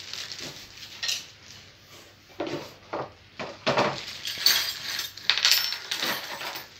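Handling noise: irregular light clinks, knocks and scrapes, one about a second in and then a busy run of them through the middle and latter part.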